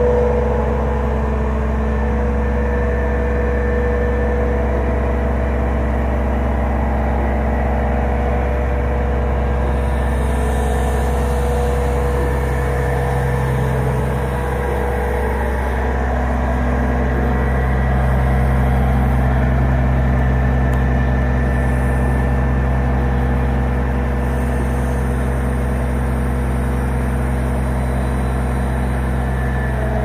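A mobile crane's diesel engine running steadily: a constant low hum with a steady higher tone above it.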